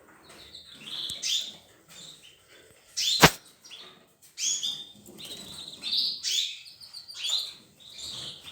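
Canaries chirping and calling in short high notes, several birds at once. One sharp click sounds about three seconds in, louder than the birds.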